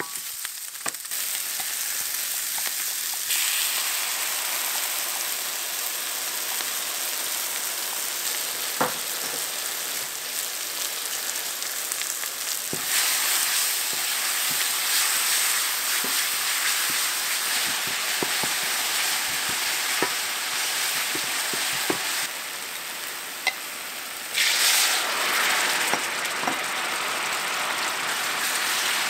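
Sliced onion sizzling in hot oil in a stainless-steel frying pan, stirred with a wooden spatula that knocks and scrapes on the pan now and then; later gochujang-based seasoning paste fries in with it. About 24 seconds in there is a loud burst of hissing as water goes into the hot pan, and it then bubbles.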